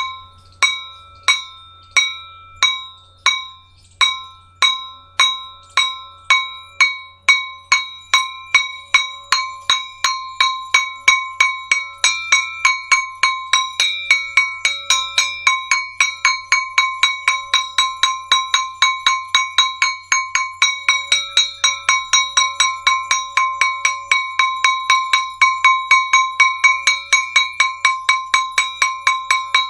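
A zalar (jhalar), a small metal aarti gong, struck over and over with a wooden stick, each stroke giving a bright ringing tone that dies away. The strokes start at about one and a half a second and quicken to about three a second.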